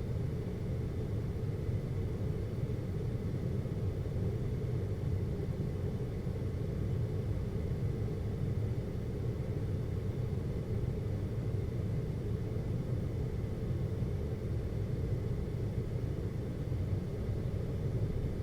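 Air conditioner running with a steady low hum, even and unchanging, with a faint high tone above it.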